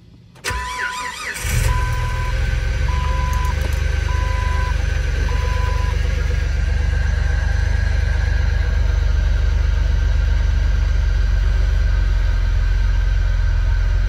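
Cold start of a Jeep Wrangler Rubicon's 4.0-litre inline-six after sitting overnight: the starter cranks for about a second, the engine catches and settles into a steady idle that sounds weak but shows no rod knock or ticking. A dashboard warning chime beeps about once a second over the first six seconds.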